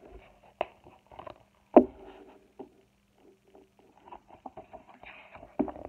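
A paperback picture book being handled and lifted up: scattered light taps and rustles of the cover and pages, with one sharper knock a little under two seconds in.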